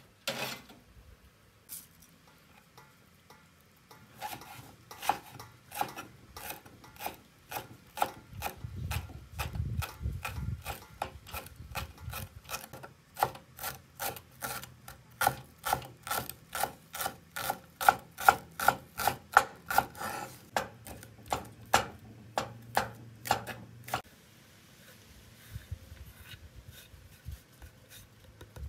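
Knife slicing green onions on a wooden cutting board: a steady run of sharp chops, about three a second, that starts a few seconds in and stops near the end.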